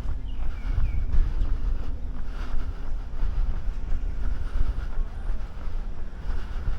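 Wind buffeting the microphone as a low, gusty rumble, with a few short bird chirps in the first second.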